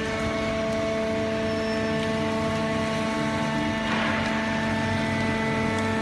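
Automatic horizontal hydraulic baler running: a steady machine hum with several held whining tones, and a brief hissing rush about four seconds in.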